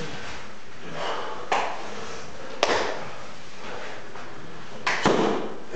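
Three sharp slaps of bare skin as sumo wrestlers strike and collide in practice: about a second and a half in, a second later, and about five seconds in, each followed by a short echo.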